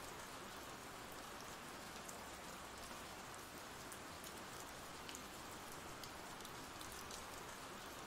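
Faint, steady rain ambience track: rain falling with scattered light drop ticks.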